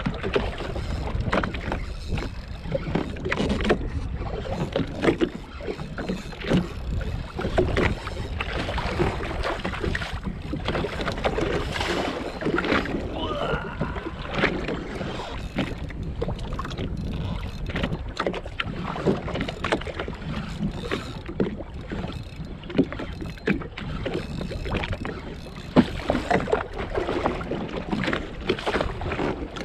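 Choppy water slapping and splashing against the hull of a drifting jet ski, irregular and continuous, with wind buffeting the microphone.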